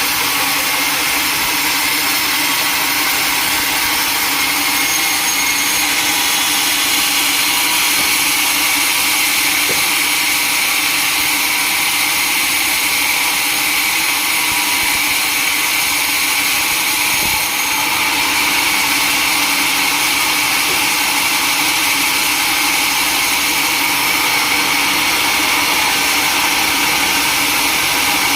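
Sawmill machinery running with a steady, unbroken mechanical noise.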